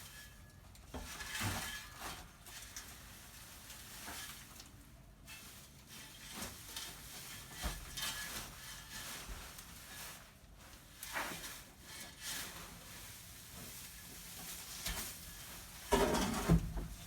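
Loose hay and straw rustling and scraping as it is shoved across a wooden loft floor, with scattered knocks. The loudest scrape comes near the end.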